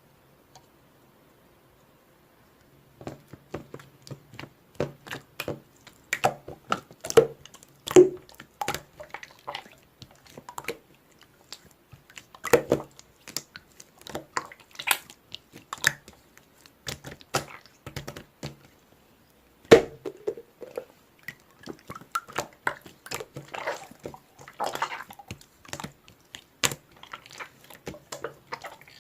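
Slime being squeezed and pressed by hand, giving an irregular run of wet clicks, pops and squelches that starts about three seconds in.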